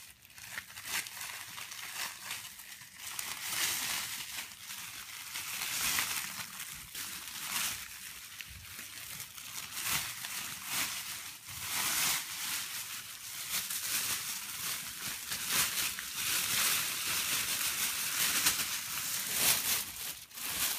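Mylar emergency blanket crinkling as it is unfolded and spread out by hand: a continuous, irregular crackling rustle with many louder crackles.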